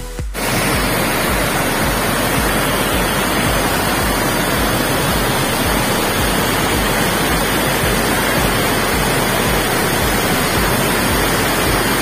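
Water rushing steadily out of the open sluice gates of a concrete dam and pouring into the channel below, a loud, even rush.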